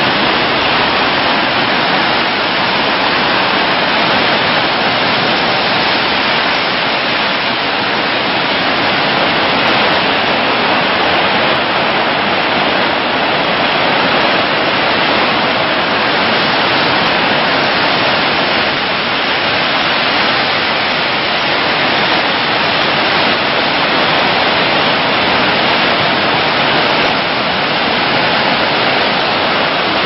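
Niagara Falls: a loud, steady rush of falling water.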